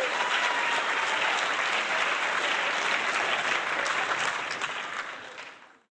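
A large crowd applauding, many hands clapping in a dense steady patter that fades from about four seconds in and stops just before the end.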